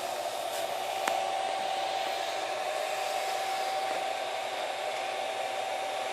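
Steady electric-motor whir with a constant mid-pitched whine, from the home-built CNC router's running machinery. The whine grows a little stronger about a second in.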